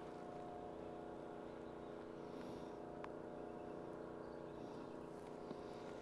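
A steady mechanical hum with several held tones, like a motor running at constant speed, with a faint tick or two.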